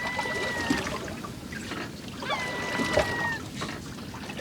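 Water lapping and sloshing around a small fishing boat drifting at sea. Two long, steady high tones sound over it, each about a second long and about two seconds apart.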